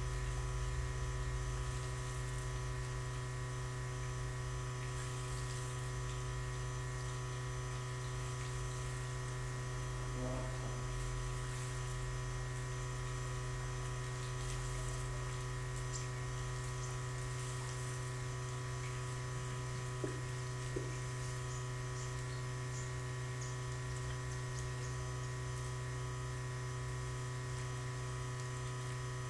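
Steady low electrical hum with several steady tones stacked above it, unchanging throughout; two short ticks about twenty seconds in.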